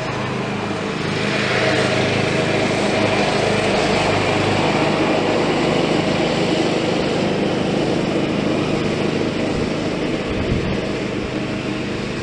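An engine running steadily with a low hum, and one brief knock about ten and a half seconds in.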